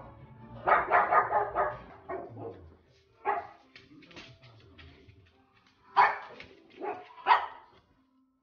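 A pug barking: a quick run of barks about a second in, then single barks, with the loudest ones near the end.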